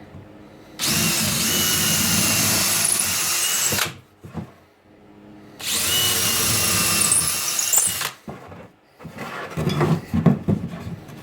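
Power drill with a 3/16-inch bit boring pilot holes for lag bolts into cedar, in two runs of about three seconds each. A few knocks and clatter follow near the end.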